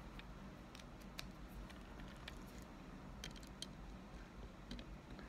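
Faint, scattered small clicks and taps of a precision screwdriver and a tiny Torx bit being handled as the bit is swapped to a T4.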